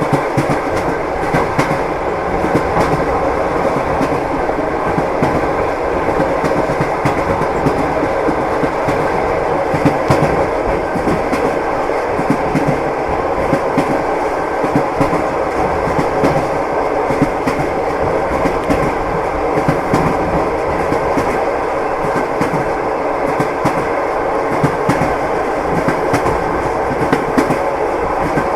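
Long-distance passenger train heard from inside a compartment carriage: a steady rumble, with the wheels knocking over the rail joints.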